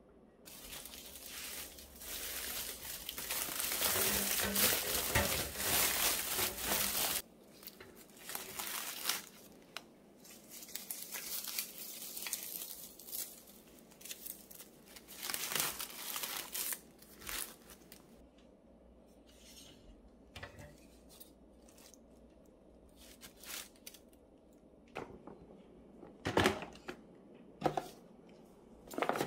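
Crumpled brown packing paper crinkling and rustling as it is handled, dense and loudest over the first several seconds, then in softer, intermittent rustles. A few sharp knocks near the end as items are set into a metal wire basket.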